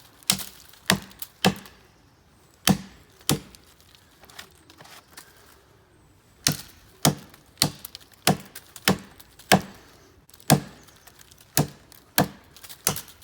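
Origin Knives Bushcrafter axe chopping a face cut into a tree trunk: a run of sharp, even chops about one every half second, with a break of about three seconds near the middle.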